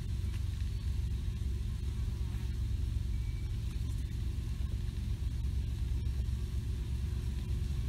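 A steady low rumble with a faint high hiss above it, unchanging throughout.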